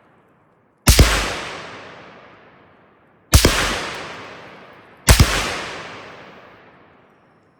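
Three AR-15 rifle shots, the second about two and a half seconds after the first and the third under two seconds later, each followed by a long echo dying away.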